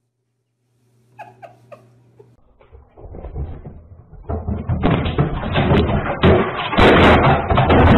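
Three short squeaks, then a loud run of banging and rattling with sharp knocks, heard through a security camera's low-quality microphone, as a cat pushes at the lid of a wooden box cabinet.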